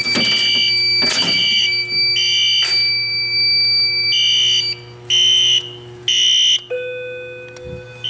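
Wheelock NS fire alarm horn sounding in the temporal-three pattern: three short high-pitched blasts about a second apart, a pause, then three more. A thin steady tone sits under the first half, and a different steady tone takes over near the end. Keys rattle at the start.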